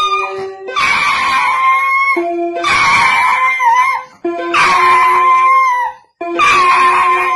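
A curly-coated dog howling along to a toy electronic keyboard it is pawing, in about four long calls with short breaks, each dipping in pitch at its end. Under the howls the keyboard sounds steady held electronic notes.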